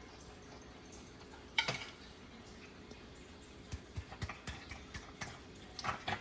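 Kitchen containers knocking and clinking against a cooking pot while relish is added: one sharp knock about one and a half seconds in, then a run of light taps and clicks near the end.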